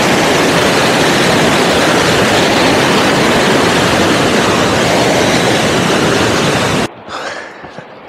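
Loud, steady rush of a turbulent mountain river pouring through rocks. It cuts off suddenly near the end, leaving much quieter open-air sound.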